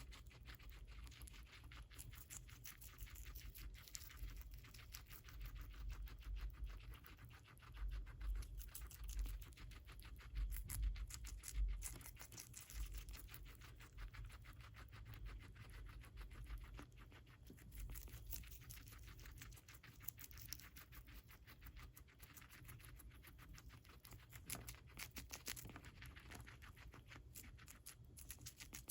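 Guinea pig chewing lettuce: a fast, continuous run of small crisp crunches and leaf tearing. A few low bumps come about a third of the way in.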